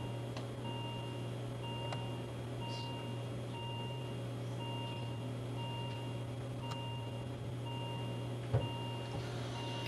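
Simulated patient monitor alarm beeping steadily, one short beep about every second, over a steady low hum.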